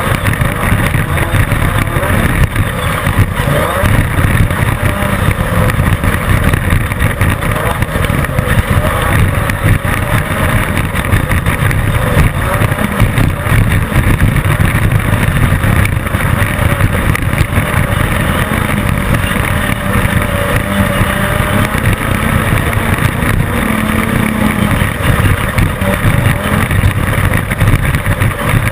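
Class 10 desert off-road race car running at racing speed: the engine's pitch rises and falls over a constant loud low rumble. Many short knocks and rattles run through it.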